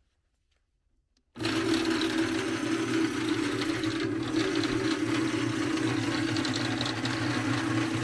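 Small portable cement mixer switched on about a second in, its motor running steadily and the drum turning a small batch of rammed-earth mix with cement and black pigment.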